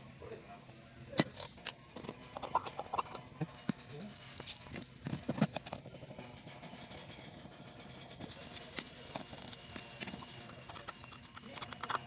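Irregular small metal clicks and taps of a screwdriver and hands working on a dial pressure gauge as it is taken apart: the needle prised off and the back screws undone.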